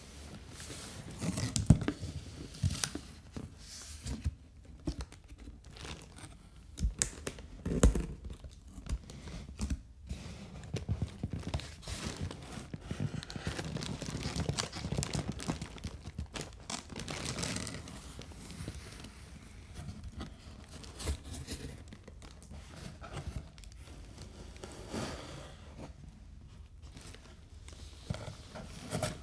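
A cardboard shipping box being opened by hand: tape tearing and cardboard flaps scraping and rustling as they are pulled apart and folded back, with a few sharp knocks and some crinkling of plastic packaging.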